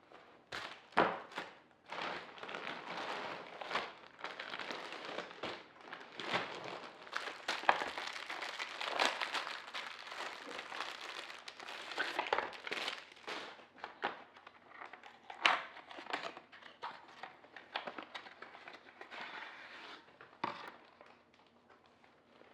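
Packaging being unwrapped by hand, crinkling and rustling irregularly with sharp crackles and a few louder knocks.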